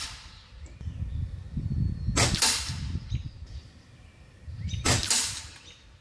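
Two shots from a .22 Reximex Throne Gen 2 Compact PCP bullpup air rifle, about two and a half seconds apart. Each is a sharp double crack: the shot, then a moment later the pellet striking the target.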